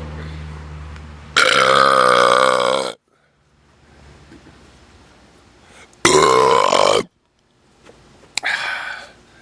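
A man's loud burps from drinking malt liquor, three of them: a long first one of about a second and a half with a wavering pitch, a second of about a second whose pitch rises, and a shorter third near the end.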